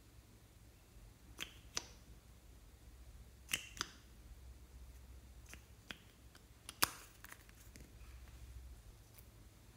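Faint scattered clicks and taps, about ten of them, the sharpest about two-thirds of the way in, from handling a plastic makeup dropper bottle and its dropper over a glass dish of slime. A faint steady low hum lies under them.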